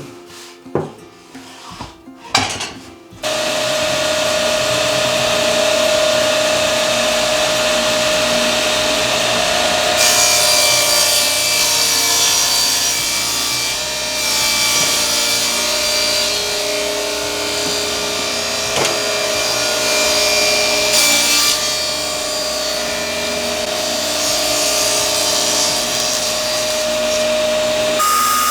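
A few light knocks and clatters, then from about three seconds in a table saw running steadily with a held whine as it cuts through wood.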